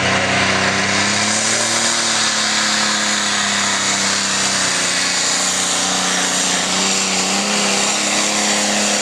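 Pulling vehicle's engine running hard at high revs during a pull. Its pitch holds fairly steady, with slight rises and dips.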